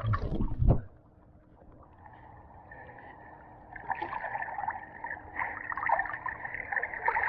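Water splashing and gurgling in a swimming pool as a puppy swims. It is loud for about the first second, then drops away, and builds up again from about four seconds in.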